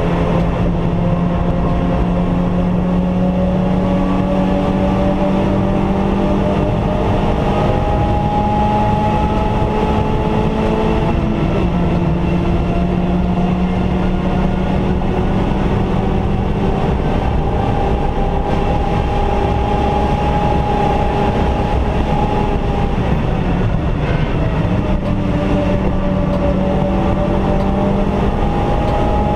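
Stage 2 Suzuki Swift's four-cylinder engine pulling hard, heard from inside the cabin. Its note climbs slowly, drops about eleven seconds in and again a little before the end, then climbs again. Under it is a steady hiss of tyres on wet tarmac.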